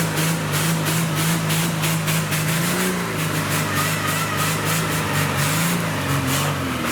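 Off-road 4x4 truck engine running under load, its revs rising and falling slightly a few times.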